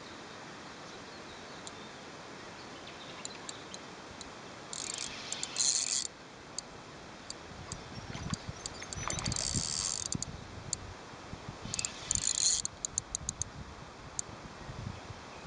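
A fishing reel being wound in three short spurts, each a high whirring hiss about a second long, with scattered sharp ticks between them.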